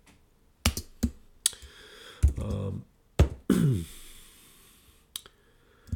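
A few scattered keystrokes on a computer keyboard, with two short wordless voice sounds between them, the second falling in pitch.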